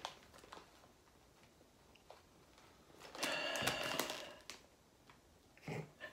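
A clear plastic snack bag crinkling as it is handled and set down on a table: a crackly rustle lasting about a second, starting about three seconds in, with a few faint clicks before it and a short rustle near the end.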